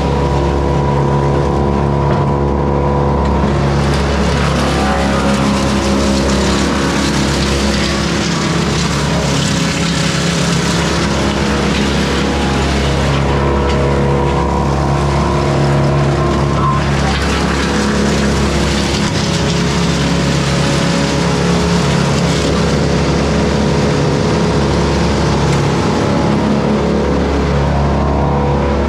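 Morbark Beever M12R wood chipper running steadily at high speed while branches are fed through it. A noisy chipping and grinding sound swells and fades over the steady engine note several times.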